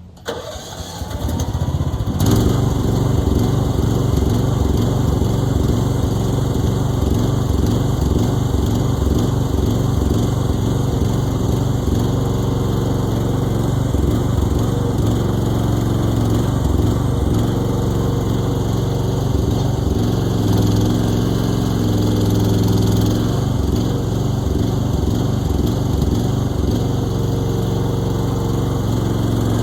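Mini excavator's engine starting and coming up to a loud, steady run within about two seconds, then running on evenly.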